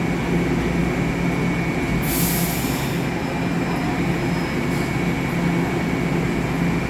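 Toronto Rocket subway train running, with a steady low hum and a faint steady high tone, and a brief hiss about two seconds in.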